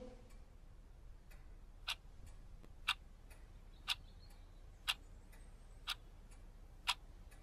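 A clock ticking in an otherwise silent room: a sharper tick about once a second with a fainter one between.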